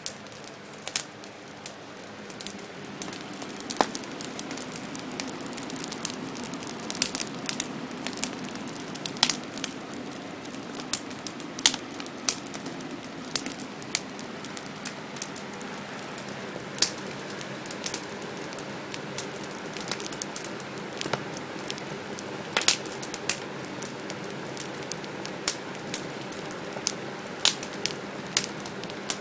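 Campfire crackling, with frequent sharp pops over a steady background hiss.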